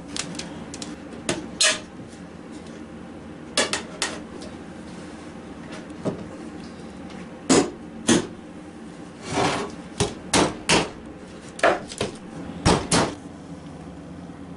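Irregular sharp knocks and taps of wood on wood, about a dozen, mostly in the second half, as the glued dovetailed pine box sides are worked and knocked together on a wooden workbench.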